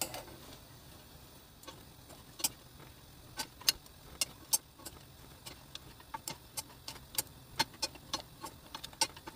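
Wooden spatulas tapping and clicking against a frying pan as dried filefish strips are tossed and stirred. The taps are light and irregular, about one or two a second.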